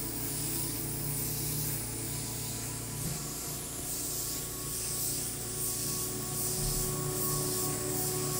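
Oxygen facial machine's airbrush wand spraying oxygen mixed with hyaluronic acid solution onto the skin: a steady hiss, with a faint steady hum underneath.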